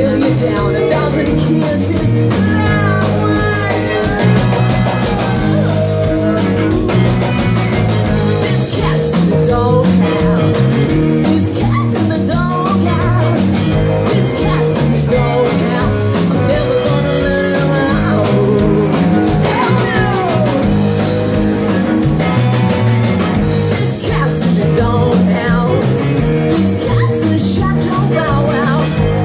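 A live rock-and-roll band playing: drums, bass and guitars with a steady beat, and a woman singing at times.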